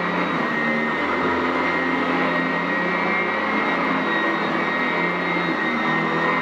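Sanitaire SC899F commercial upright vacuum running steadily over carpet: a continuous high motor whine over rushing air.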